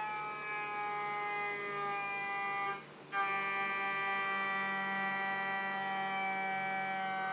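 CNC router spindle milling steel with a 6 mm carbide end mill on a facing pass: a steady, many-toned high-pitched whine. It dips out briefly about three seconds in, then picks straight back up.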